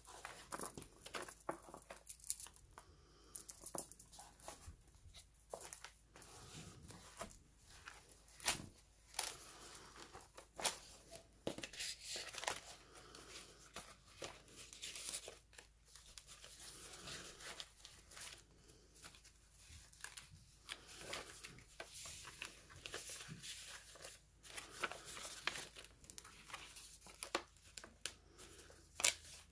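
Paper pages, tags and cardstock inserts of a handmade junk journal rustling and crinkling as they are turned and handled, in irregular bursts of crackles and soft flaps.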